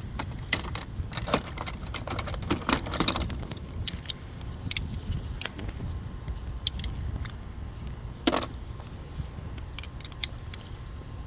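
Metal hand tools clinking and rattling: a socket wrench extension and spark plug socket being picked out, fitted together and worked on a spark plug. Irregular clinks come thick at first, then sparser, with one heavier knock near the end, over a steady low rumble.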